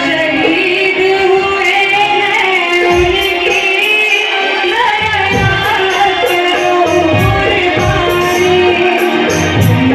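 A girl singing a Hindi patriotic song in long, held notes with bending pitch, over musical accompaniment with occasional drum strokes.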